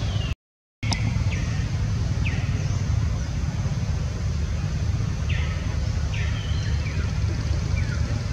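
Outdoor background noise: a steady low rumble with short, high chirps that each fall in pitch, scattered every second or so. The sound cuts out completely for about half a second near the start.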